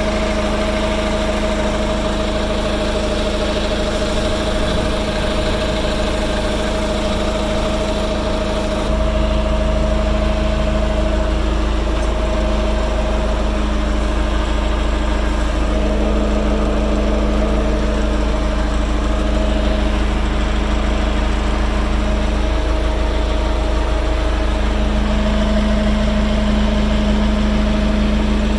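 John Deere 610B backhoe loader's diesel engine idling steadily, a constant low drone with a held hum. About nine seconds in the sound turns deeper and less hissy, then holds steady again.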